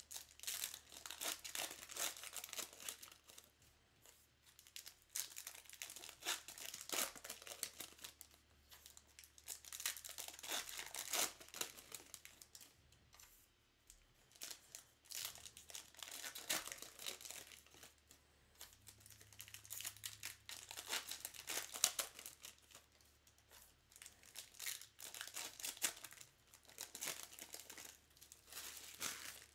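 Trading card pack wrappers being torn open and crinkled by hand, in about six bouts of a few seconds each.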